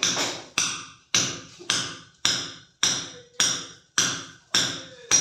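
Hammer blows at a wall near the ceiling, struck in a steady rhythm of just under two a second. Each strike is sharp and dies away quickly with a brief high ring.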